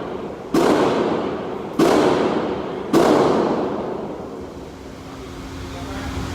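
Three gunshots about a second and a quarter apart, each followed by a long fading echo.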